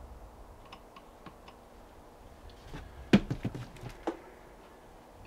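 Typing on a computer keyboard: a few scattered keystrokes, then a quick run of louder key taps about three seconds in.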